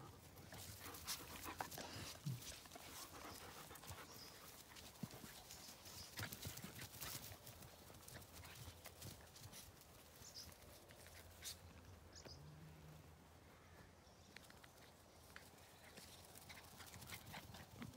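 Near silence: faint outdoor background with scattered light clicks and rustles, more of them in the first half.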